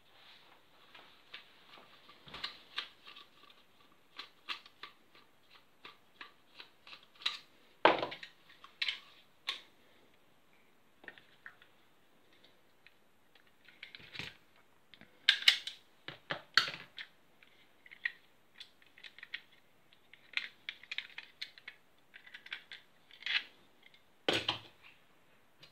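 Airsoft rifle parts handled on a workbench: a run of light plastic and metal clicks and taps, with a few louder knocks as parts are set down.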